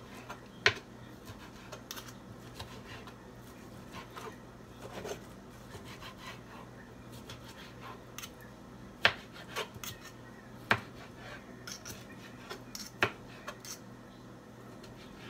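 Knife slicing cooked steak on a plastic cutting board: soft sawing strokes and scattered sharp clicks of the blade and fork against the board, with a few much louder clicks about a second in and three more in the second half. A low steady hum runs underneath.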